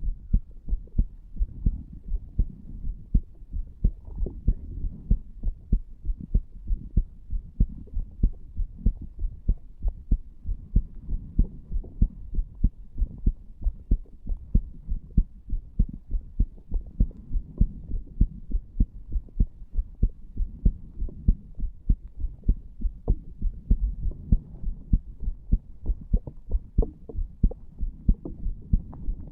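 An adult man's heartbeat, recorded against the chest over the tricuspid valve area: a steady, regular train of low lub-dub thuds over a faint low hum.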